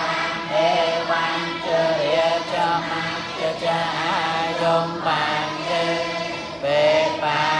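Buddhist monks chanting Pali verses together in unison. Their voices hold long notes and glide between pitches in a sung, melodic style.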